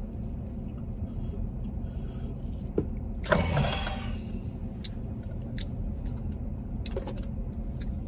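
Steady low rumble of a car idling, heard from inside the cabin, with a short, louder burst of noise about three seconds in and a few small clicks.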